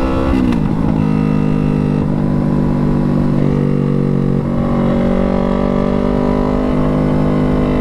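Straight-piped Yamaha R3 parallel-twin motorcycle engine, running with only headers and a mid pipe and no muffler. The revs drop just after the start, then hold nearly steady with small shifts in pitch, as when cruising.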